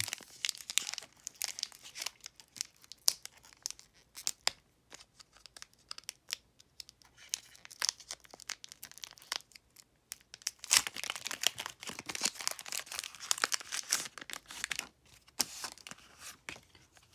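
Foil booster pack wrapper of Pokémon trading cards crinkling and being torn open, in irregular spells of crackling with short pauses, the longest spell a little past the middle.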